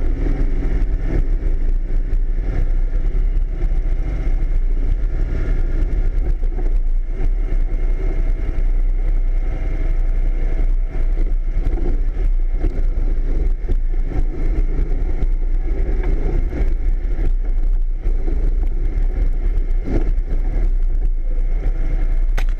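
Yamaha off-road vehicle's engine running at low trail speed, with frequent knocks and rattles as it bumps over rocks and ruts.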